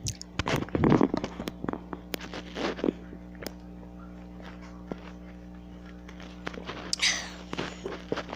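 Close-miked drinking of water: small sips, swallows and mouth clicks. The sounds are busiest in the first few seconds, with a breathy exhale near the end.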